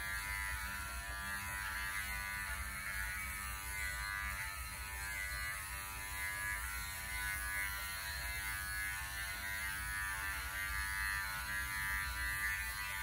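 Electric dog-grooming clipper with a snap-on comb, running with a steady hum as it clips a dog's cottony coat.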